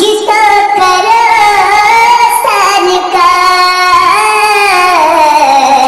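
Song with a high-pitched voice singing long, held notes that slide from one pitch to the next.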